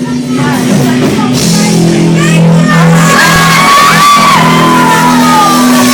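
Loud music playing, with people's voices shouting over it.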